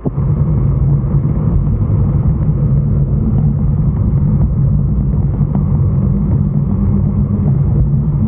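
Steady low rumble of a NANROBOT Lightning 3.0 electric scooter being ridden at speed on a paved path: road and riding noise.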